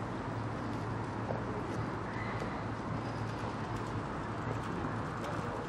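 Outdoor city-street ambience: a steady low hum under an even wash of distant traffic noise, with a few faint taps.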